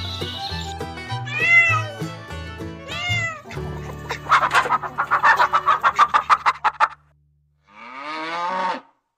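Domestic cat meowing over background music: two rising-and-falling meows in the first few seconds. These are followed by a fast run of pulsed calls, about six a second, a short break, and one more drawn-out call near the end.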